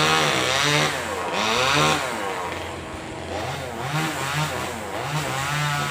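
Two-stroke chainsaw cutting a coconut palm: the engine revs high twice in the first two seconds, then runs at a lower, wavering speed that rises and falls.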